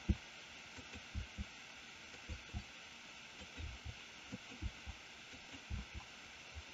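Faint, dull low thuds at irregular spacing, about fifteen of them, from computer keyboard and mouse presses knocking through the desk into the microphone.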